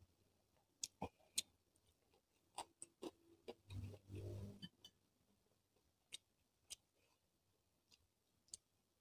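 Faint, scattered clicks and taps of a metal spoon against a ceramic plate and bowl as food is served, with a short soft rustle about four seconds in as a piece of fish is set down on rice.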